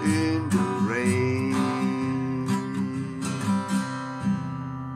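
Acoustic guitar strummed under a long held sung note that bends up about a second in. A final chord is struck about four seconds in and left ringing, fading away.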